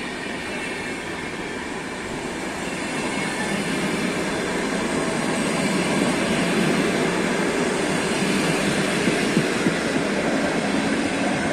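Passenger train coaches rolling past close by: a steady rumble and hiss of wheels on rails that grows louder partway through, with a couple of sharp clicks near the end.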